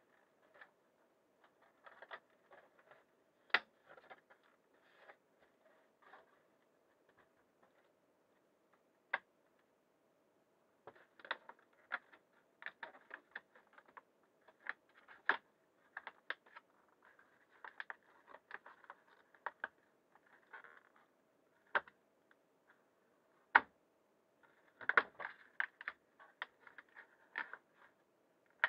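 Irregular clicks, taps and short crunches, sparse at first and more frequent in the second half, over a faint steady hum.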